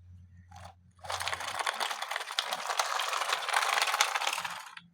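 Plastic toy being handled or moved, with a dense crackling, rattling noise that starts about a second in and stops near the end.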